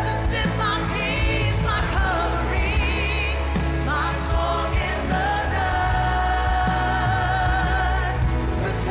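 Worship music: a singer holding long notes with a wide vibrato, sliding between pitches, over a steady low accompaniment.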